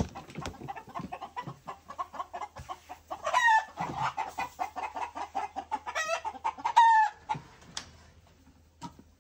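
A flock of Fayoumi (Egyptian) chickens clucking steadily, with a few louder drawn-out calls about three seconds in and again around six to seven seconds. The clucking thins out near the end. A single sharp knock sounds right at the start.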